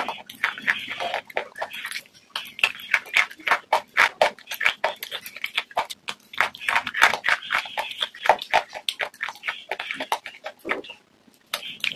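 Close-miked mouth crunching: a person biting into and chewing crunchy food, with many sharp crunches in quick succession and a short pause near the end.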